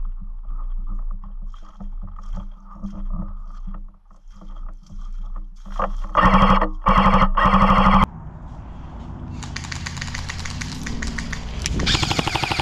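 Airsoft M4 rifle firing on full auto: two loud rapid bursts about six seconds in, the second running about a second. Fainter rapid airsoft fire comes before them, and more bursts follow near the end.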